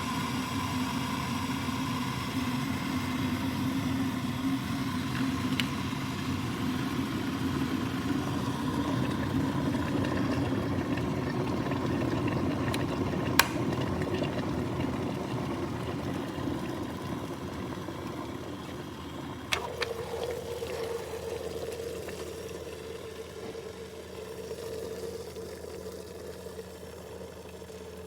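Aigostar Adam 30GOM glass electric kettle heating water near the boil, with a steady rumbling hiss. There is a sharp click about 13 seconds in and another about 20 seconds in, after which the rumble falls away and a fainter hum fades out.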